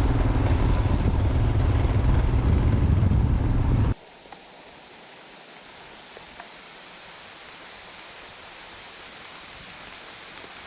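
Motorcycle on the move, with a loud low rumble of engine and wind noise on the microphone; about four seconds in it cuts off abruptly to a much quieter steady hiss.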